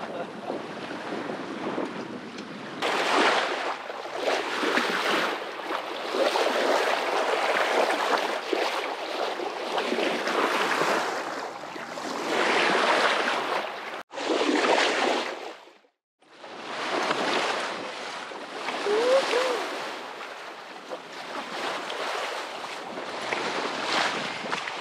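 Sea water rushing and splashing around a sailboat under way, with wind buffeting the microphone, surging and easing every few seconds. The sound breaks off suddenly twice around the middle.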